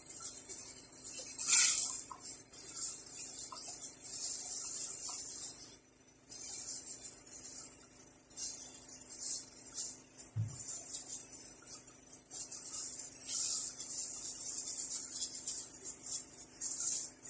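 Plastic bag worn over a hand crinkling and rustling as it rubs marinade into split fish in an aluminium foil tray, in uneven strokes with short pauses. The loudest crinkle comes about a second and a half in, and a soft low thump comes about ten seconds in.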